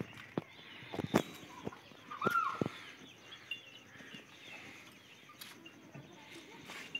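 Water buffalo feeding at a trough of chopped fodder, with scattered knocks and rustles, the loudest about a second in. About two seconds in comes one rising-and-falling bird call, and small birds chirp faintly throughout.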